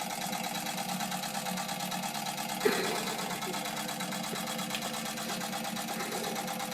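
Wilesco D455 toy steam engine running steadily, a fast even chuffing rhythm, with a single sharp knock about two and a half seconds in.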